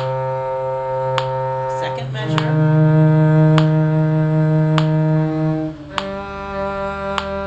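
Low bowed string instrument playing slow, long held notes, with the pitch changing about two seconds in and again about six seconds in. A soft click sounds about every second and a quarter.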